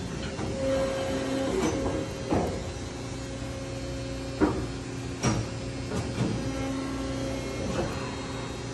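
Injection molding machine running with a steady hum of two held tones, broken by about seven sharp knocks and clunks at irregular intervals.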